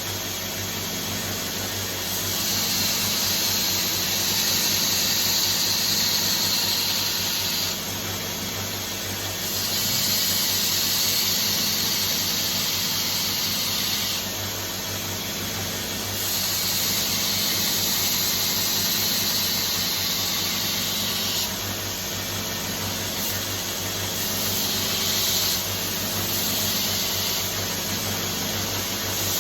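2x72-inch belt grinder running with a steady motor hum, while a blade is pressed against the moving belt in sharpening passes. Each pass lasts a few seconds and adds a loud grinding hiss; there are about five passes with short gaps between them.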